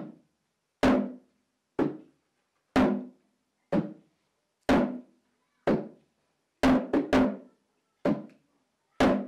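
Background music: a single drum struck about once a second, each beat dying away quickly, with a quicker run of three beats about two-thirds of the way through.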